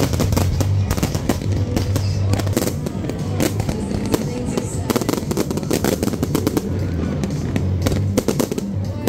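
Aerial fireworks going off in rapid bangs and crackles, many in quick succession, with music playing underneath.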